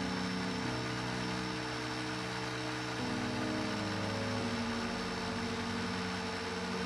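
Food processor motor running steadily with a constant hum as it blends egg, mustard and sunflower oil into mayonnaise while the oil goes in a little at a time.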